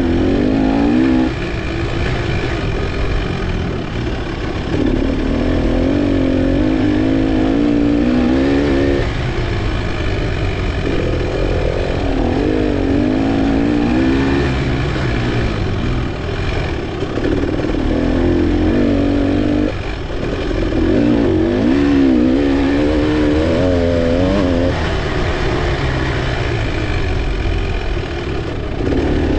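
Off-road dirt bike engine heard close from a handlebar mount, revving up and dropping back again and again as the rider works the throttle and gears, with short breaks where the throttle is shut.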